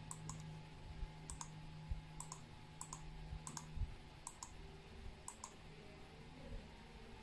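Computer mouse button clicking: about seven quick double clicks, each a close pair of sharp clicks, spaced roughly a second apart. A steady low hum sounds underneath and stops about four seconds in.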